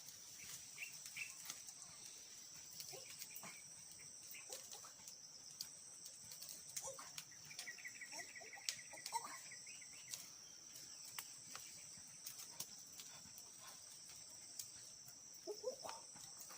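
Quiet outdoor ambience: a steady high-pitched insect drone, with scattered sharp clicks, a fast chirping trill about eight seconds in, and a few short animal calls near the end.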